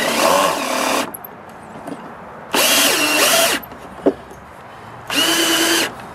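Power drill running in reverse in three short bursts of about a second each, backing out a screw that missed the wood while its head is lifted with a pry bar, with a single sharp click between the second and third bursts.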